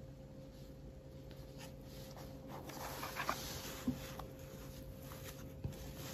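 Fingers handling a phone in a plastic screen-protector alignment frame: faint taps and clicks, with a brief scratchy rustle about three seconds in.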